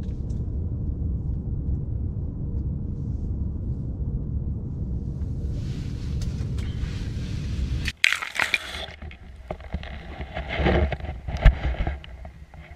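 A steady low rumble that cuts off suddenly about eight seconds in. Then come knocks, scrapes and water sloshing as a GoPro on a pole mount goes into the ice hole, with two sharp knocks near the end.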